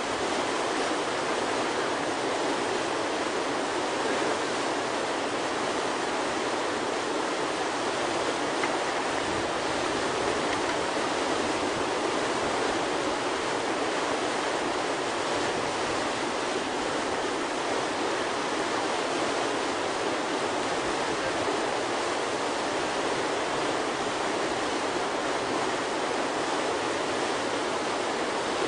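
Steady rush of whitewater pouring through a river hole and breaking over a standing wave.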